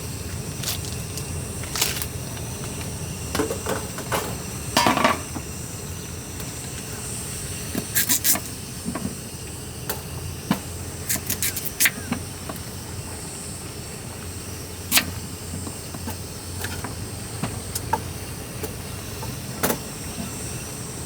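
Scattered clicks, clacks and knocks of small objects being handled, with a short rattling cluster about five seconds in and sharp single clicks near the middle and end, over a steady low outdoor background noise.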